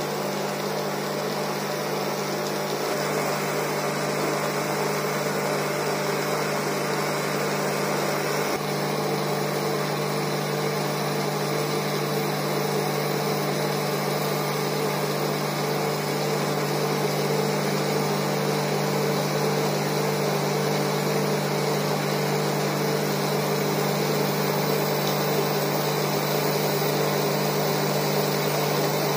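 Induction cooktop running with a steady electrical and fan hum, under a lidded pot of water and drumsticks simmering.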